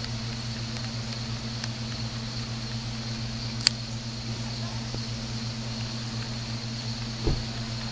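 Steady low machine hum, with a sharp click about halfway through and a short thump near the end.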